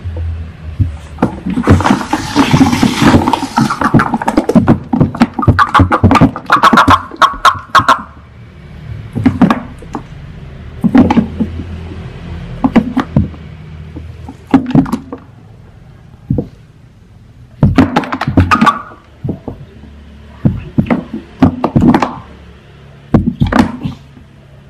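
Toads calling in short bouts of rapid pulsed croaks, packed close together for the first several seconds, then coming every second or two. A hissing noise runs for a couple of seconds near the start.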